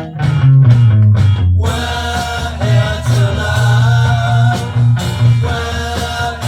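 A 1966 rock/pop single playing: guitar and bass with singing. The sound fills out sharply about one and a half seconds in.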